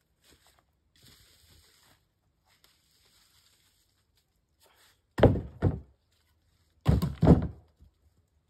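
Four heavy thuds in two close pairs, the first pair about five seconds in and the second a little over a second later, after some faint scraping and shuffling.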